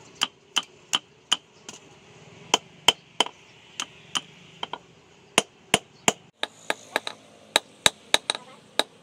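Hand hammer beating a red-hot steel knife blade on a steel post anvil: a quick run of sharp blows, two or three a second, with a short pause about two seconds in.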